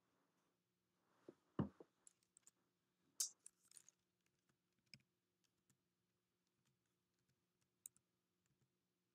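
Near silence with a faint steady hum, broken by scattered small clicks and a soft knock about one and a half seconds in: handling noise.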